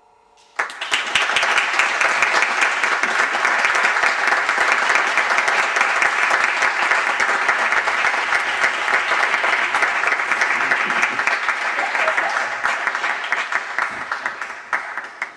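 The last piano chord dies away, and about half a second in an audience breaks into applause. The applause holds steady, then tapers off near the end.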